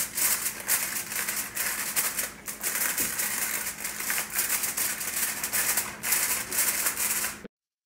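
Aluminum foil crinkling and crackling as it is pressed and crimped down over the rim of a disposable aluminum loaf pan. It goes on without a break and cuts off suddenly near the end.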